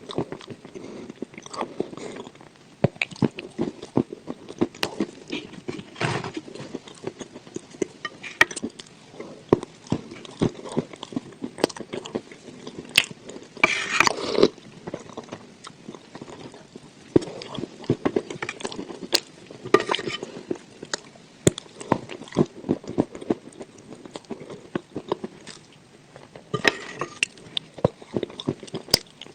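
Close-up chewing and biting of crunchy dry edible clay eaten with sour cream: dense, irregular crunches and clicks, with one louder crunch about halfway through.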